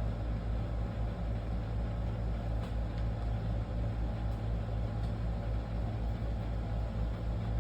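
A steady low mechanical hum, like a running motor or fan, with a couple of faint clicks about three seconds in.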